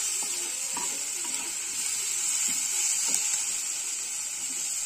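Sliced onions sizzling in a little oil in a kadai, a steady high hiss, with a spatula stirring and scraping the pan a few times. The onions are frying toward brown.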